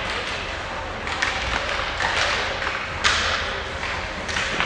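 Ice hockey play: about four sharp knocks of sticks, puck and bodies against the boards, the loudest about three seconds in, over the steady background noise of the rink.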